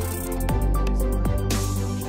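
Electronic background music with a steady deep bass, held synth chords and a few notes sliding downward.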